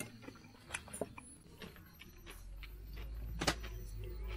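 Light clicks and taps of a spoon and chopsticks against stainless-steel camping bowls and plates, the sharpest one about three and a half seconds in, over a low rumble that builds from about halfway.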